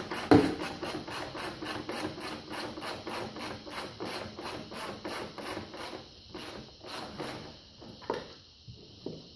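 3/8-inch ratchet clicking quickly as it backs out a muffler mounting bolt, about three to four strokes a second, with one sharp knock about a third of a second in. After about six seconds the clicking thins to a few scattered clicks.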